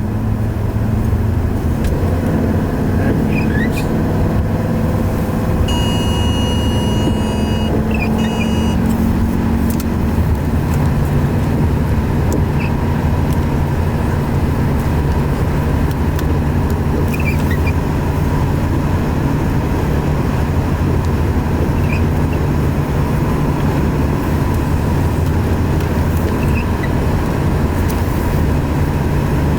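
Engine and road noise inside a moving vehicle's cabin, a steady drone whose engine note drops about ten seconds in. Between about six and nine seconds in there is a short run of electronic beeps.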